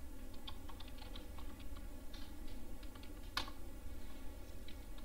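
Typing on a computer keyboard: a quick run of keystrokes, then one louder click about three and a half seconds in.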